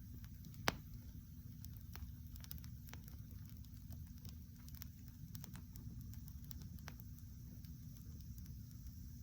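Open wood campfire crackling, with scattered small pops and one loud pop near the start.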